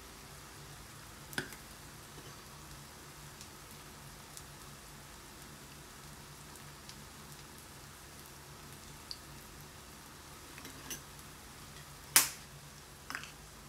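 A stainless-steel measuring spoon clinks sharply against a small stainless-steel pan near the end, with a ringing tail and a lighter clink just after. There are a few faint clicks earlier, over a steady low hiss.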